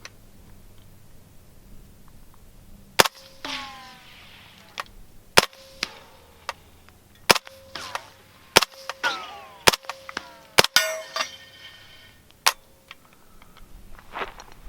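Suppressed Heckler & Koch MP5 9mm submachine gun, with an AAC Ti-Rant 9 suppressor, fired in about seven single, unevenly spaced shots. Metallic ringing follows several of the shots.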